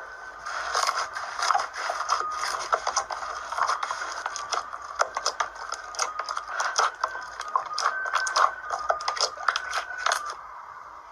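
Slime being squeezed and poked by hand, giving dense, irregular crackling and clicking pops that ease off near the end.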